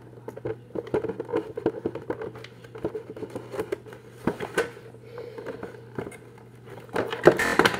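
Plastic toy packaging being handled as a toy figure is worked loose from it: a run of small crackles, clicks and crinkles, with a louder rustle near the end.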